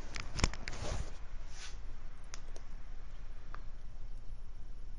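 A few sharp clicks and knocks from hands handling the laptop and the camera, most of them in the first second and then a few scattered ones, over a steady low hum.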